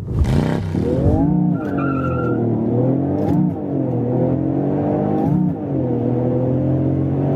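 A car accelerating hard from a launch, its engine pitch climbing through each gear and dropping at upshifts about three and a half and five and a half seconds in. A brief tire squeal comes about two seconds in.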